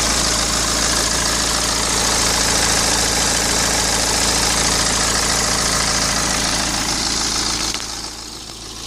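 BMW 116d's N47 two-litre four-cylinder diesel idling steadily, with the noise that the owner puts down to a faulty timing chain. About three-quarters of the way through, the sound suddenly becomes quieter and duller.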